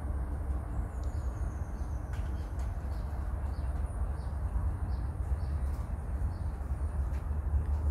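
Outdoor ambience: a steady low rumble with faint chirping repeating about once a second.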